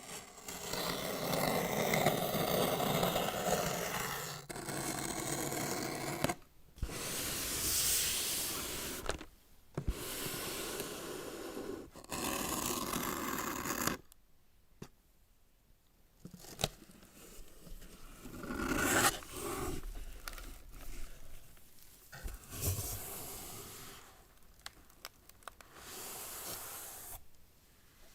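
Cardboard product packaging being opened by hand: several stretches of scraping and tearing, each a few seconds long with short breaks between them, then quieter, shorter rustles and a few clicks as the box is handled.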